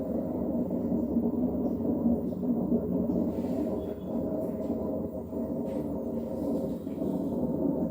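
LG direct-drive washing machine running with a steady low hum and rumble, before it reaches the spin stage.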